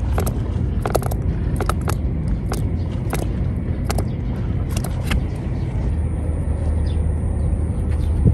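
Steady low rumble of wind on the microphone, with a string of sharp clicks and taps through the first five seconds or so. A faint high steady whine comes in about six seconds in.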